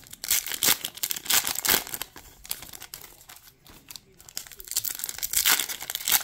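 2023 Topps Chrome foil card-pack wrappers being torn open and crinkled by hand. There are two bouts of ripping and crackling, one over the first two seconds and another near the end, with quieter handling in between.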